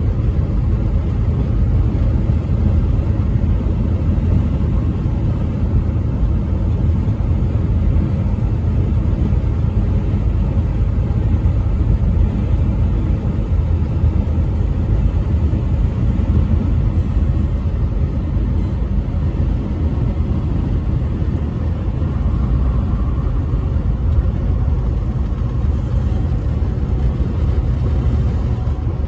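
Steady low rumble of a semi truck driving along a highway: engine and road noise, even throughout.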